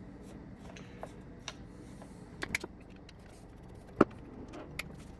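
Scattered small metal clicks and taps of hand work on a brake master cylinder: a screwdriver backing out the reservoir screws, then the cylinder handled out of a bench vise. A couple of sharper clinks come about two and a half seconds in, and the loudest single knock about four seconds in.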